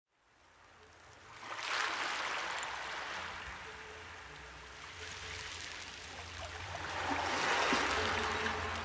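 Rushing-water sound effect, like a stream, swelling up about two seconds in and again near the end, over a low steady hum.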